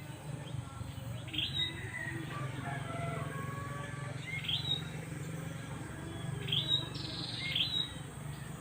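Birds chirping and calling: four short, sharply rising calls stand out, with softer whistled notes between them, over a steady low hum.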